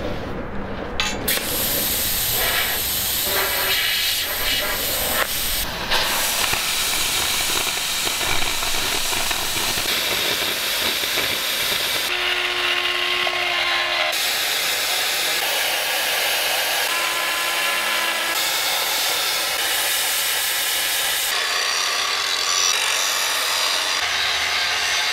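Metal-working noise in a series of abrupt cuts: a gas torch hissing over steel plate, then angle grinders cutting and grinding steel.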